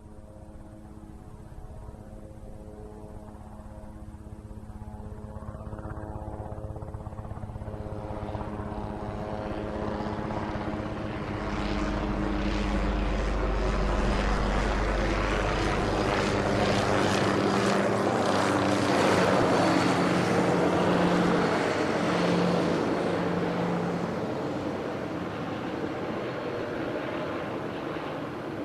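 Enstrom 480B turbine helicopter flying past: its rotor and engine drone grows steadily louder as it approaches, peaks with a rushing, chopping rotor beat about two-thirds of the way through, then fades as it moves away.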